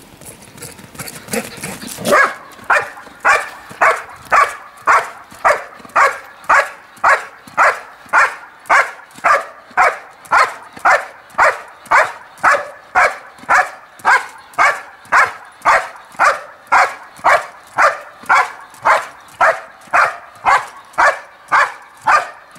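Belgian Malinois barking steadily at a helper hidden in a protection hide, about two barks a second, starting about two seconds in: the bark-and-hold of IPO protection work.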